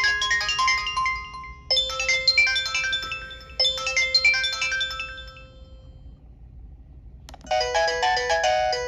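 LG VX6000 cell phone playing its ringtones. One chiming tune ends, then a short melody plays twice and dies away. After a single click about seven seconds in, another busier tune begins.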